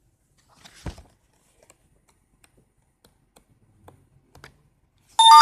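Comic book being handled and its pages turned: a short paper rustle about a second in, then faint ticks and handling noises. Just before the end a loud chime of several steady ringing tones starts abruptly.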